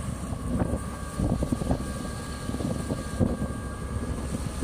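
Motor scooter running steadily along a road, its engine hum mixed with a low wind rumble on the microphone.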